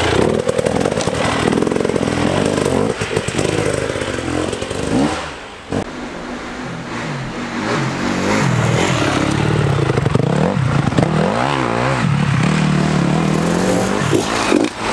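Dirt bike engines revving, the pitch rising and falling as the throttle is worked, with a short lull about five seconds in.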